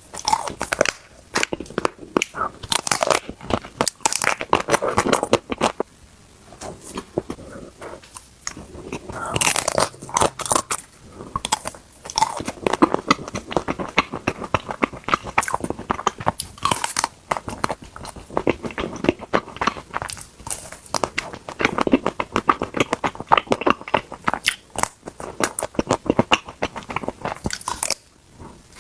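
A person biting and chewing ice cream, with many sharp, irregular crunches and wet mouth sounds in clusters, pausing briefly now and then.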